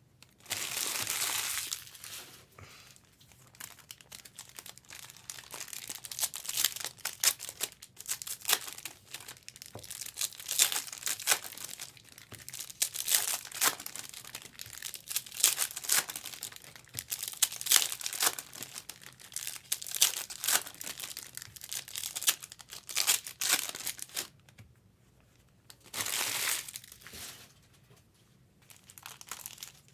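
Plastic wrapping on trading-card boxes and packs being torn open and crinkled: a run of irregular crackles, with a longer rip just after the start and another about 26 seconds in.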